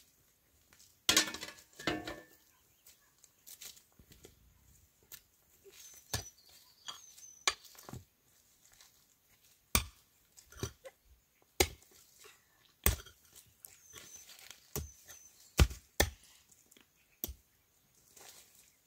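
A dozen or so sharp blows of a hand tool on wood, at uneven intervals, as work goes on building a hut. A louder rasping, rustling noise comes about a second in.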